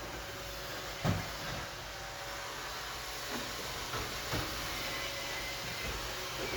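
Steady background hiss with a few soft knocks, one about a second in and two more around four seconds in.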